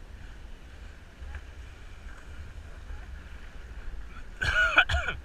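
Low steady rumble of wind and water on an action camera's microphone, then near the end a loud short burst of a person's voice.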